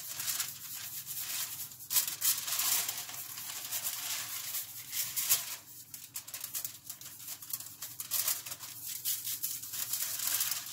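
Aluminium foil crinkling and rustling as hands rub seasoning into a whole fish lying on it: an irregular crackle with small sharp peaks.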